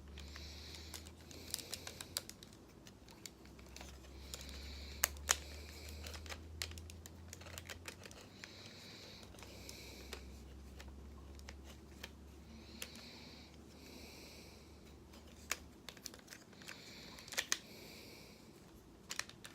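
Hard plastic parts of a Transformers Studio Series Voyager Starscream figure clicking and knocking as the figure is folded and pegged into jet mode, in many irregular sharp clicks. A low steady hum runs underneath and stops a few seconds before the end.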